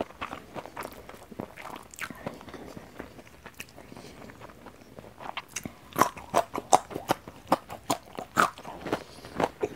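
Close-miked eating sounds: a mouthful of rice, spicy beef lung and raw long bean chewed, soft and wet at first. From about five and a half seconds in come loud, crisp crunches, several a second, as the raw long bean is bitten and chewed.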